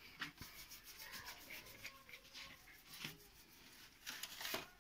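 Faint rustling and small handling clicks, with a louder, brief hissing rustle about four seconds in.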